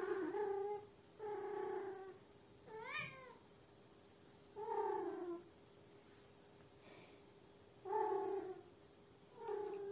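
Unspayed female cat in heat caterwauling: about six drawn-out yowls, each under a second long, with pauses of one to two seconds between them; the third is a shorter, rising call.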